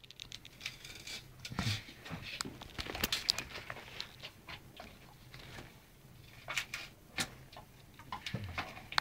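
German shepherd tearing and scraping at wallpaper with its teeth: irregular scrapes and small clicks, louder in a few short bursts.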